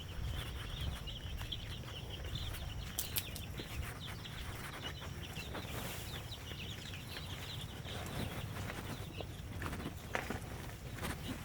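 Domestic chickens peeping: a dense, continuous high chatter of short chirps that thins out about two-thirds of the way through, over a low rumble with scattered light knocks.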